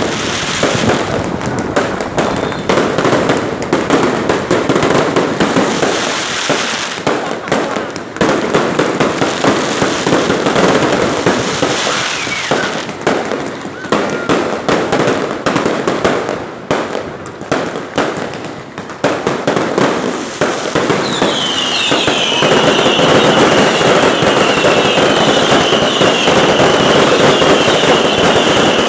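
A fireworks display: a rapid run of bangs and crackling shell bursts. From about 21 s in, the crackle thickens into a steady dense barrage, and a high whistling tone comes in over it, dropping slightly in pitch and then holding.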